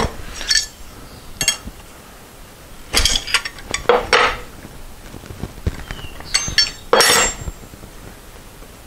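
Steel open-end wrenches clinking on the collet nut and shaft of a handheld router as the collet is loosened to take the bit out. The clinks and rattles are scattered, with the loudest clusters about three, four and seven seconds in.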